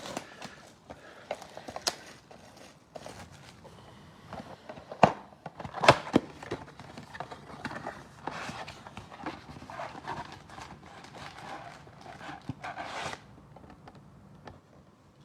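A sealed box and foil packs of trading cards being handled and opened by hand: scattered clicks and taps, two sharp knocks about five and six seconds in, then crinkling wrapper noise.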